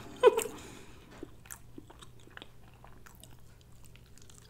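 Close-up crunching bites and chewing of a fried, breaded chicken wing: many small, irregular crackles. There is a brief vocal sound just after the start.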